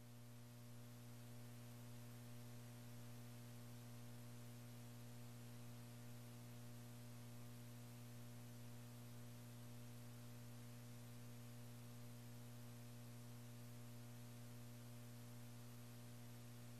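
Near silence: a steady low electrical hum with a faint hiss.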